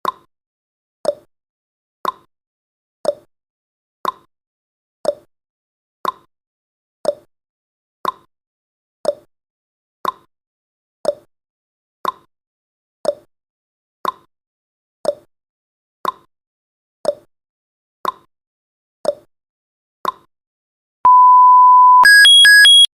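Countdown timer sound effect: a clock tick-tock, one tick a second alternating higher and lower, running down to zero. Near the end the ticking gives way to a steady one-second beep, then a loud electronic alarm of rapidly alternating high tones as the timer runs out.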